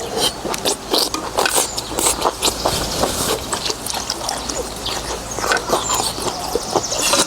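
Eating sounds of noodles in beef soup, close to the microphone: wet chewing and slurping, with many quick irregular clicks and smacks.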